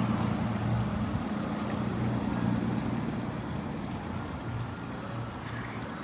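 Low, steady hum of a motor vehicle's engine running, slowly fading over the few seconds.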